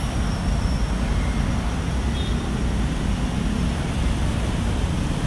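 Steady low rumble of slow-moving road traffic, motorcycles and cars.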